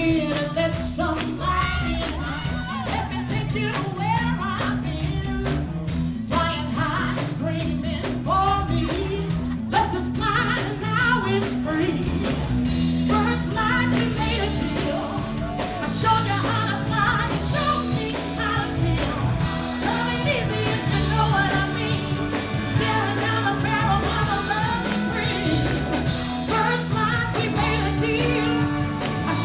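Live band playing an upbeat groove on drums, bass and electric guitar, with a woman singing lead over it.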